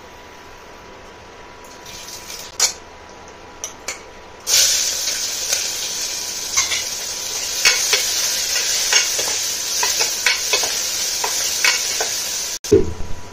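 A few light metal clinks, then, about four seconds in, a sudden loud sizzle as chopped vegetables are tipped into hot oil in a pressure cooker for a tadka. The frying sizzle goes on steadily while a metal spoon stirs and clicks against the pan.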